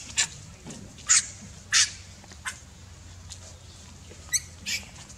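Baby macaque giving short, high-pitched squealing cries, about six in five seconds, the loudest two in the first two seconds. These are distress calls from an infant resisting its mother's handling.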